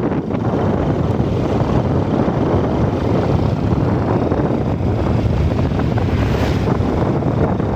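Wind buffeting the microphone of a moving motorcycle, over the bike's engine and tyre noise, steady and loud. About six seconds in, an oncoming lorry passes close by with a brief rise in hiss.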